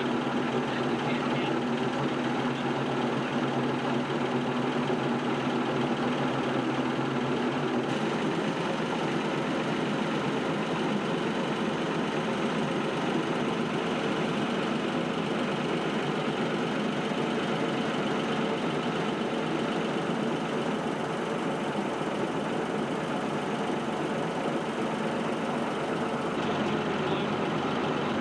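1941 Chris-Craft Model 112's inboard engine idling steadily, its tone shifting slightly about eight seconds in and again near the end.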